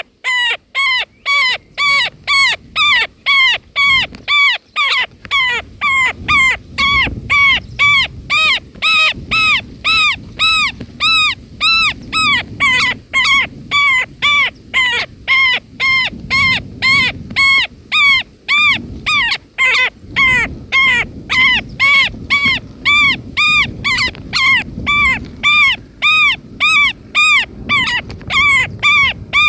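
Indian Roller nestlings begging: a steady string of short, arched, whining calls, about two a second, close and loud.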